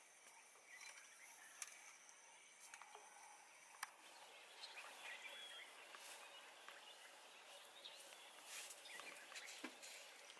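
Faint outdoor ambience: a low hiss with a few short bird chirps and a couple of sharp clicks, the loudest about four seconds in.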